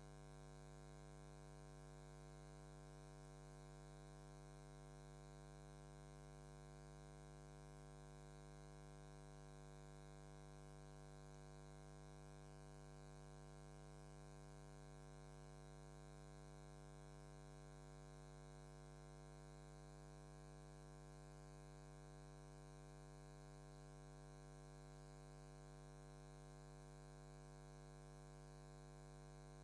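Near silence with a faint, steady hum made of several overtones, unchanging throughout.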